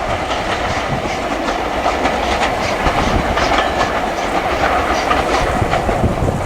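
Passenger train hauled by an Ivatt 2MT steam locomotive passing close by, its carriage wheels clicking steadily over the rail joints.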